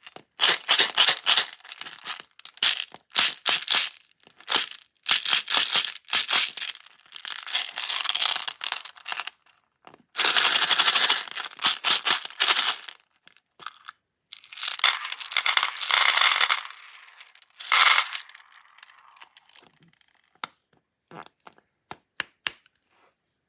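Plastic beads pouring and sliding across trays in repeated rattling rushes, each lasting a second or two with short gaps between. Near the end the rushes stop and only a few scattered clicks remain.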